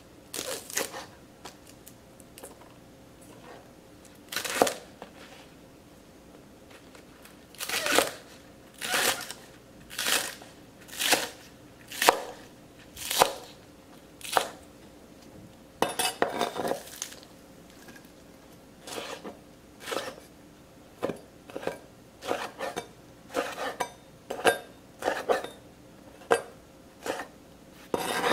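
Chef's knife chopping green onions and wood ear mushrooms on a plastic cutting board: single sharp strokes of the blade hitting the board, unevenly spaced, about one a second at the busiest, with short pauses between runs.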